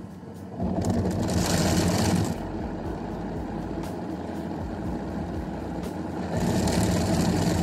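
Automatic car wash machinery heard from inside the car: water spraying and a rotating brush working over the windscreen, a steady wash of noise. Two louder hissing spells stand out, about a second in and near the end.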